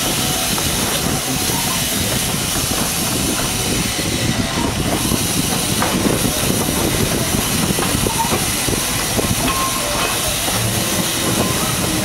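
Miniature steam train running along its track, heard from on board: a steady hiss with the wheels clicking irregularly over the rails.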